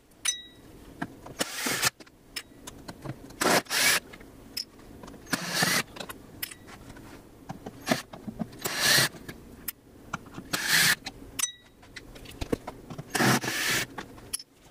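Cordless drill/driver running in six short bursts, each under a second and a couple of seconds apart, backing out the screws that hold a carpet cleaner's bottom pan.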